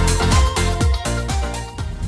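Background electronic dance music with a steady kick-drum beat.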